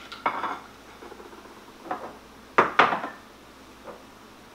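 Filled glass canning jars and kitchen utensils being handled and set down on a tiled countertop: a few separate clinks and knocks, the loudest a close pair about two and a half seconds in.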